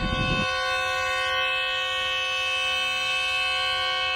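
GEU40 diesel locomotive's horn sounding one long, steady blast of about four seconds, ending sharply near the end.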